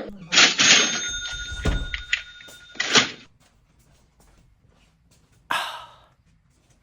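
A bell-like ringing sound lasting about three seconds, with several steady tones that stop abruptly, followed a couple of seconds later by a short burst of noise.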